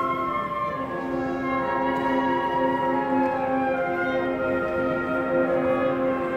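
Symphony orchestra playing a slow passage of long held notes, bowed strings together with brass.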